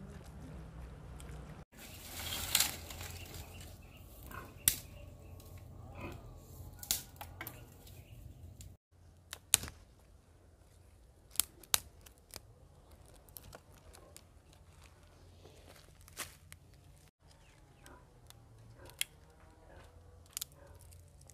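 Dry dead branches being snapped and pulled from a brush pile: sharp, irregular cracks every second or two, with rustling of dry twigs and leaves between them.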